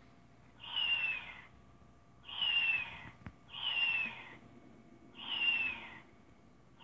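Interactive plush kitten toy playing the same short recorded meow through its small speaker, over and over, about every one and a half seconds, each call falling in pitch. A faint click sounds a little past the middle.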